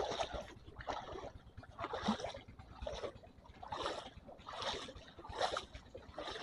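Footsteps wading through shallow seawater, a splash with each step about once a second.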